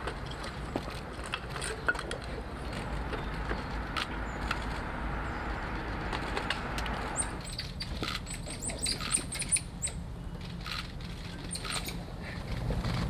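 Meerkats scrabbling at a wooden advent calendar: light scratches, taps and rustles over a steady low background rumble, with a run of short high chirps a little past the middle.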